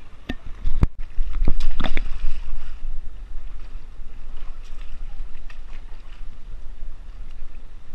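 River water running over rocks, with wind rumbling on the camera microphone from about a second in. A quick cluster of knocks and splashes falls in the first two seconds, the loudest part.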